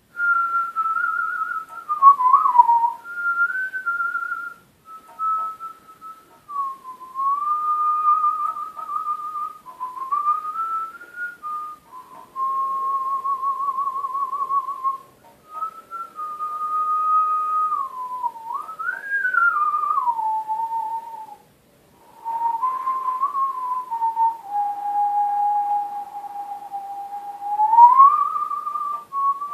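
Artistic lip whistling of a slow melody: a single clear tone moving in phrases, with vibrato on held notes and short breaks between phrases.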